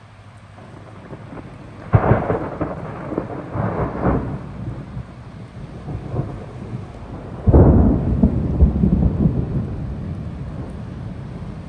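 Thunder: a sudden sharp clap about two seconds in that crackles and rolls for a couple of seconds, then a second loud clap about seven and a half seconds in that rumbles on and slowly fades.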